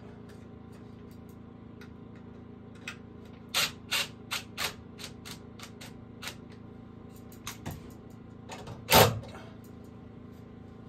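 A series of sharp, irregular knocks and taps. A quick run of four comes about a third of the way in, lighter taps are scattered after it, and one heavier knock, the loudest, falls near the end, over a steady low hum.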